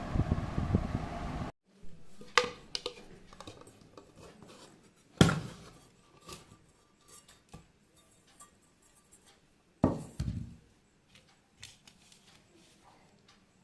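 Air fryer's fan running with a steady whoosh that cuts off abruptly about one and a half seconds in. Then scattered knocks and clatter of a cake tin being handled, the loudest about five seconds in and again near ten seconds.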